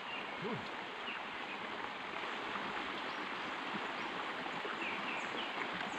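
Steady rushing outdoor background noise with a few faint, short high chirps.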